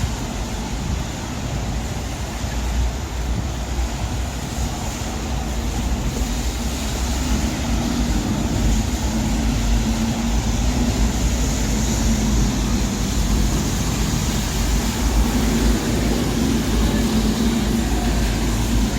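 Steady city street noise: traffic on rain-wet roads, a constant hiss over a low rumble, growing a little louder about a third of the way in.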